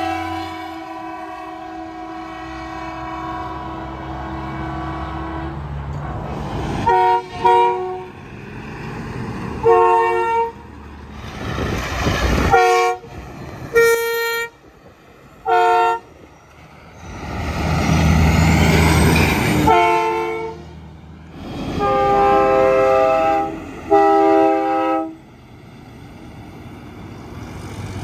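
Semi-trucks fitted with train horns blowing as they pass. A long horn chord drops in pitch and stops about five seconds in, followed by a string of short, loud blasts of several tones at once. Diesel engine and tyre noise from the passing trucks fills the gaps.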